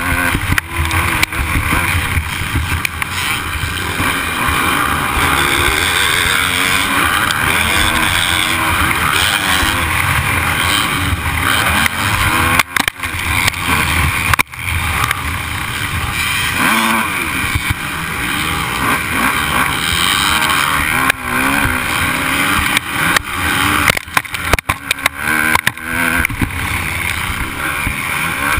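Motocross dirt bike engine at race pace, ridden on track, revving up and down as the rider works the throttle and gears. There are a few brief dips in loudness about halfway through and again near the end.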